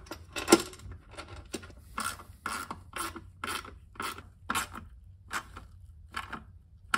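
Hand ratchet being worked back and forth, short rasping strokes about two a second, as bolts are run into rivet nuts to mount a coolant expansion tank on the firewall.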